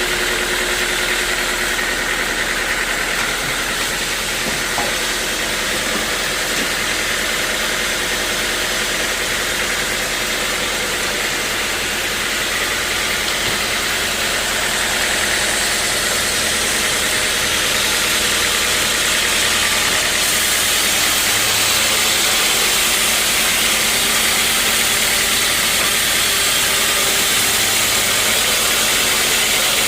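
Sawmill machinery running steadily, a low engine hum under a broad hiss. It grows somewhat louder about halfway through.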